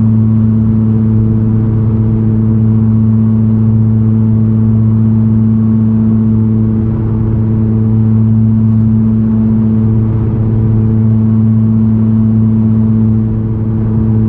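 Worn wheel bearing humming in a car driving at steady speed: a loud, low drone of constant pitch over road noise. The owner takes it for the left rear wheel bearing.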